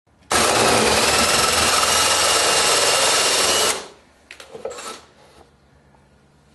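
Milwaukee cordless drill driving a Blue Boar carbide-tipped self-feed hole saw through fiber-cement Hardie siding and OSB: a loud, steady cut that starts abruptly and stops after about three and a half seconds. A few faint knocks follow.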